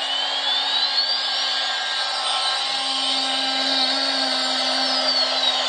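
Battery-powered toy train's small electric motor and gearing running steadily as the locomotive travels along its plastic track: a continuous whirring hum.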